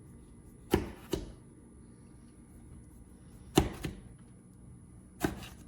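Kitchen knife cutting slices into an eggplant, the blade knocking down sharply three times, each knock followed by a smaller second one.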